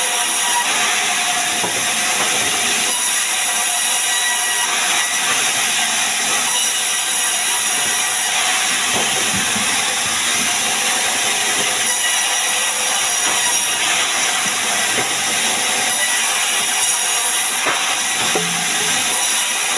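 Sawmill band saw ripping a sengon log lengthwise into a beam: a steady hiss of the blade cutting through the wood.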